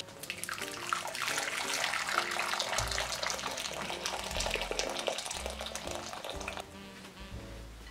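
Hot water poured in a steady stream into a cloth-lined glass bowl, splashing as it fills. The pouring stops about six and a half seconds in.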